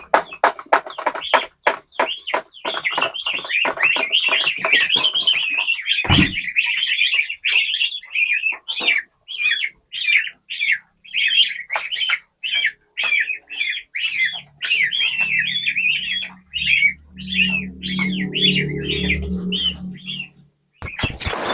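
Domestic chicks peeping: many short, high-pitched cheeps, packed densely together at first, then coming as a quick run of separate calls about two a second. A low hum sounds underneath during the second half.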